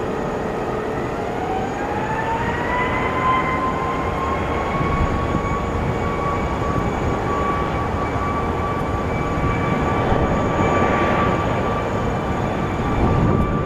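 Boeing 737 MAX 8's CFM LEAP-1B turbofan engines spooling up for takeoff: a whine rises over the first few seconds, then holds steady over a broad jet rumble.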